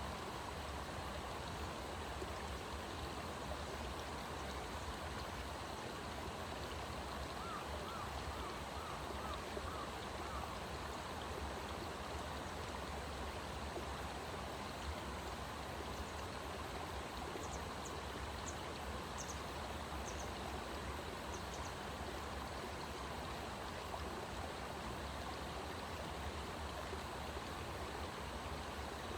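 Steady rushing of a stream. A short run of faint chirps comes about a quarter of the way in.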